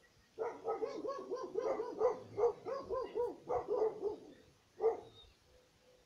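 A fast run of short, pitched animal calls, about four or five a second, stopping about four seconds in, then one more call a moment later.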